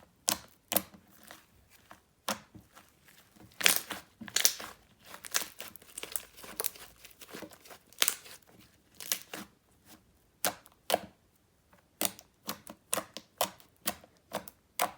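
Shower-gel slime being squeezed and poked by hand, giving irregular crackling and popping clicks, some spaced a second or more apart and some in quick clusters.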